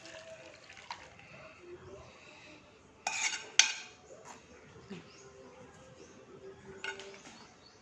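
Kitchenware clinking and knocking as boiled milk is strained through a strainer: a few scattered clinks, with a brief clatter and the sharpest knock near the middle.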